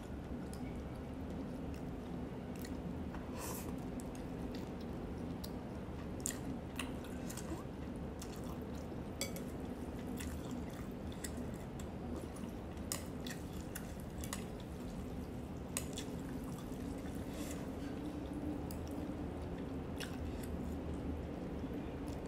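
Close-up eating sounds of rice vermicelli noodles and sliced beef: soft chewing and mouth noises with scattered sharp clicks of chopsticks against a ceramic bowl, over a steady low hum.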